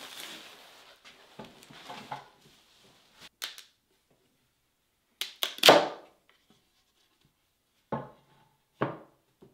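A heavy paper sack of concrete mix is dragged and slid across a plywood bench, rustling and scraping, as weights are taken off a veneer glue-up. About five seconds in comes a loud clatter of wooden boards and weight being handled, then two single knocks as boards are set down on the bench.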